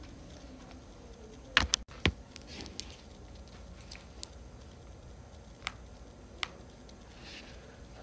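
Makeup products being handled: a quick cluster of sharp clicks and taps about a second and a half in, as from a plastic compact being opened, then a few lighter scattered clicks.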